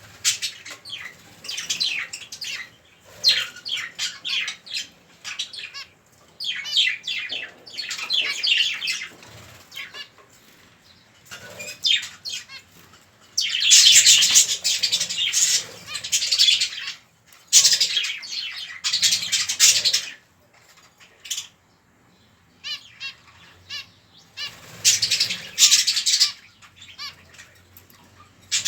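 Budgerigar chicks begging for food: bursts of rapid, raspy chirping, each a second or two long, with short pauses between. The loudest bursts come about halfway through.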